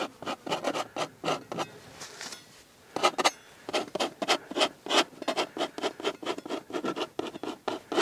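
Steel palette knife scraping and dabbing oil paint across a primed linen canvas in quick short strokes: a run of strokes, a pause of about a second, then a denser run of strokes several per second.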